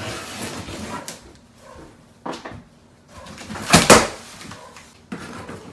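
Large cardboard shipping box of a gaming chair being handled and opened: cardboard scraping and flaps knocking in a few separate strokes, the loudest a double scrape about four seconds in.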